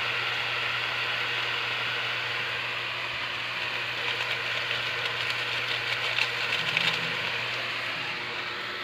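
Diced sponge gourd sizzling in a wok over a wood fire, a steady hiss over a low hum, with a run of crackles and pops about four to seven seconds in.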